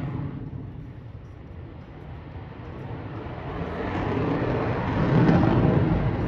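Aircraft engine roar that fades away, then builds up again about three seconds in and peaks near the end, as aircraft pass over an airshow crowd.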